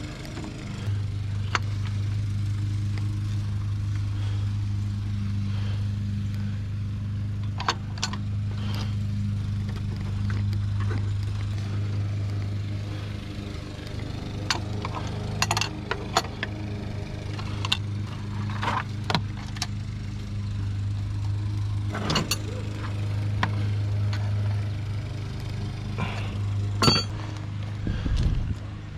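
A steady low hum, like a motor or engine running, holds throughout with scattered sharp clicks and knocks, the loudest about 27 seconds in.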